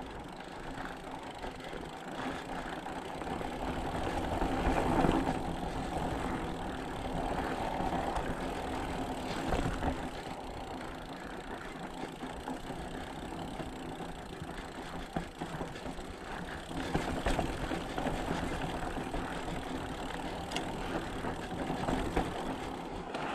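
Mountain bike riding noise: a steady rumble of the bike rolling over rock, with frequent small rattles, clicks and knocks from the bike.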